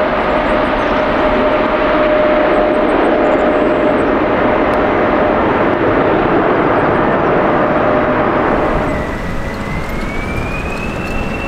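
Boeing 777 climbing out at takeoff thrust on its twin GE90 engines: a loud steady jet roar with a held tone in it. About nine seconds in it gives way to a quieter Boeing 737-500 whose engines spool up with a rising whine, starting its takeoff run.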